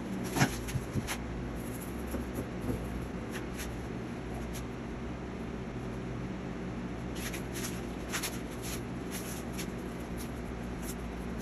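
Scattered soft rustles and light taps of a brush and fingers working on a painted canvas, with a cluster near the start and more from about seven seconds in, over a steady low hum.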